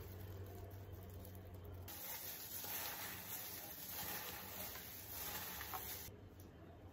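Faint rustling and crinkling of a plastic-gloved hand tossing raw carrot ribbons in a bowl after squeezing lime juice over them. A low hum lies under the first couple of seconds, and the rustling gets louder from about two seconds in.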